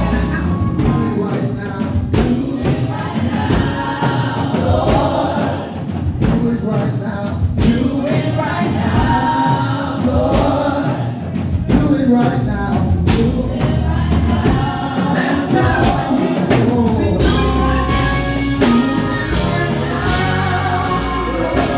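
Live gospel music: several voices singing into microphones over instrumental backing.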